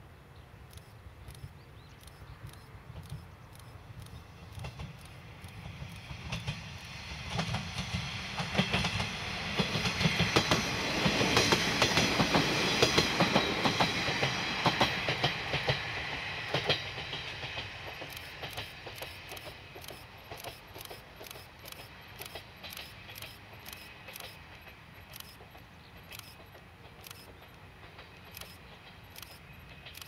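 Two-car JR Kururi Line diesel railcar set, a KiHa 30 and a KiHa 38, approaching and passing. Engine drone and wheel clatter build up, are loudest about 11 to 15 seconds in, then fade as it moves away. A level-crossing bell dings about twice a second throughout.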